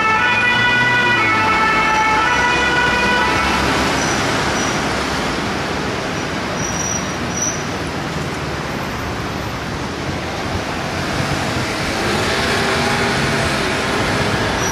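Paris fire engine's two-tone siren alternating between two pitches, dying away about four seconds in as the truck moves off. Steady city traffic noise fills the rest.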